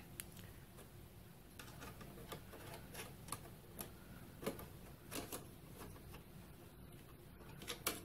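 Irregular light clicks and taps of a graphics card's trimmed metal backplate bracket against the steel PC case as the card is worked down into its slot, a little louder about halfway through and again near the end.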